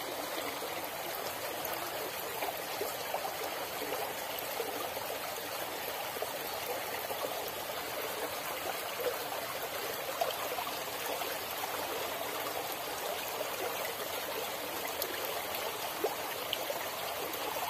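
Shallow stream flowing over stones: a steady rush of moving water.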